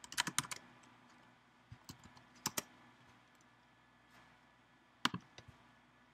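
Faint computer keyboard typing, keys tapping in short quick runs as a file path is entered. A last few sharp clicks come about five seconds in.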